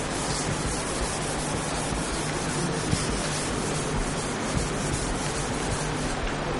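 A duster wiping a whiteboard, a steady scrubbing noise of repeated strokes, picked up close by a microphone carried in a pocket.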